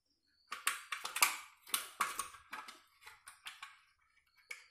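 Irregular light clicks and taps as a motherboard and a PCI LAN card are handled, the circuit boards knocking against fingers and each other.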